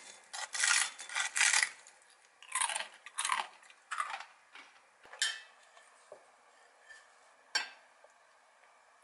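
Kitchen scissors snipping through crisp pan-fried dumpling wrappers over a ceramic bowl, a run of crunchy cuts through the first four seconds. Two sharp clinks follow, then quiet.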